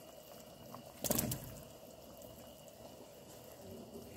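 Potato pieces dropped into a pot of braising liquid at a boil, with one loud splash about a second in over the steady bubbling.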